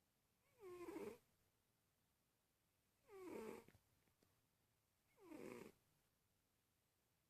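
Domestic cat snoring in its sleep: three short snores about two seconds apart, each a faint wheezy tone that falls in pitch.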